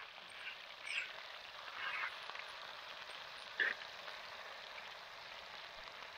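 Campfire burning after being stirred up: a steady hiss with a few sharp crackling pops about one, two and three and a half seconds in.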